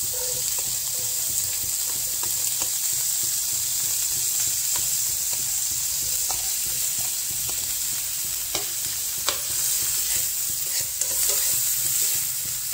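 Chopped capsicum, tomato, green onion and corn sizzling steadily in hot oil and butter as they are tipped into the pan and sautéed. A spoon scrapes and clicks against the pan, more often in the second half.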